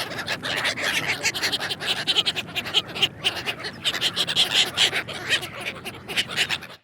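Dense, continuous chorus of many birds calling over one another, like a flock of waterfowl.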